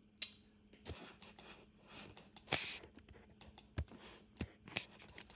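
Irregular keystrokes and clicks on a computer keyboard and mouse, a scattered run of sharp taps with the loudest about two and a half seconds in, over a faint steady low hum.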